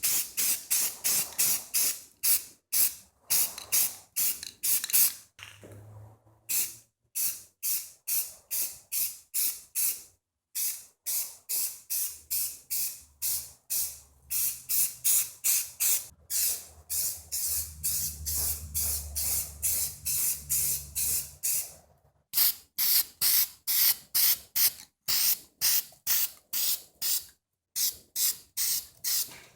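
Rapid back-and-forth scrubbing strokes of an abrasive on a hard surface, about four a second, in runs broken by a few short pauses.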